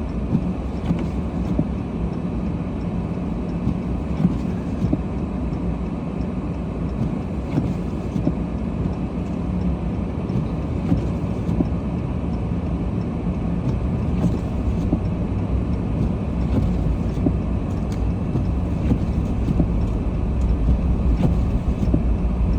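Steady low rumble of a car driving on snowy roads, heard from inside the cabin: engine and road noise, growing a little louder in the last several seconds.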